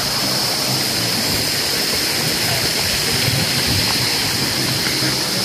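Shallow stream running over rocks, a steady rush of water, with a steady high-pitched whine over it.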